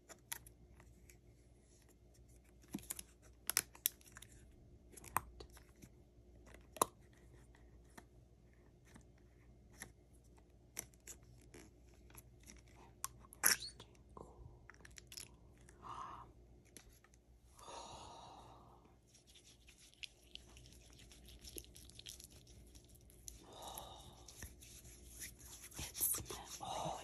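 Long fingernails tapping and clicking on a lotion pump bottle and its pump head, in scattered sharp clicks, with short stretches of rustling twice past the middle and again near the end.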